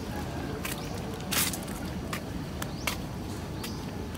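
Footsteps of someone walking on a paved path, about one step every three quarters of a second, over steady low background noise.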